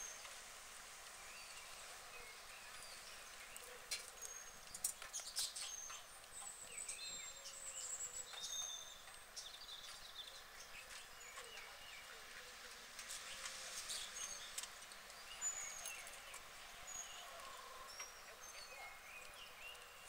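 Faint outdoor ambience with small birds chirping in the background: scattered short, high chirps and whistles, and a few sharp clicks about four to five seconds in.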